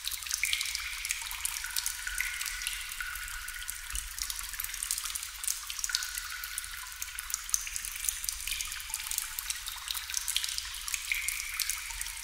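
Water drops falling into water: many irregular drips, some ringing as short plinks at a few different pitches.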